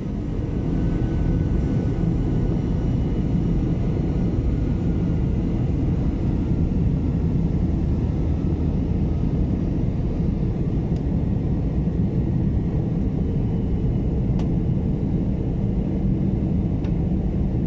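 Jet airliner's engines and airflow heard inside the cabin: a loud, steady rumble.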